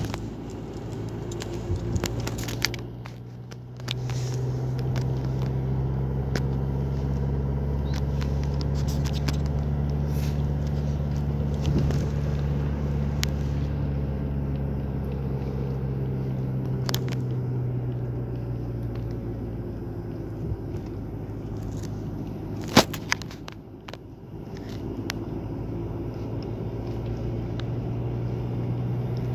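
Steady low mechanical hum like an engine running, which swells a few seconds in, dips briefly about three-quarters through and comes back, with a few sharp clicks.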